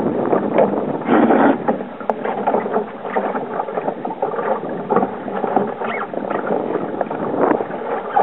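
Small wooden Sabre-class sailing dinghy under way in strong wind: a steady rush of water and wind around the hull, broken by many short knocks and slaps from the water and the boat's fittings.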